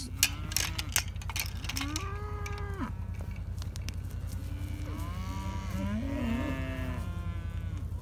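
Dairy cows mooing: one moo lasting about a second, starting about two seconds in, then several overlapping moos from about five seconds in. A steady low hum runs underneath.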